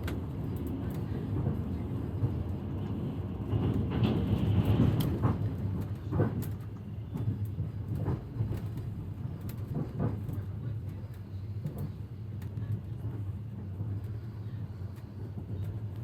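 Train carriage running along the track, heard from inside: a steady low rumble with the wheels clacking over rail joints every second or two.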